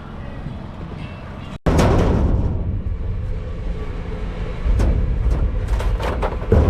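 A vehicle's engine rumbling low, with a few sharp knocks and rattles. The sound breaks off abruptly about a second and a half in, then comes back louder.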